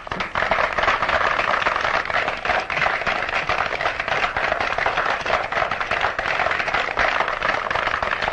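A large group of children clapping together: a dense, steady patter of many hand claps.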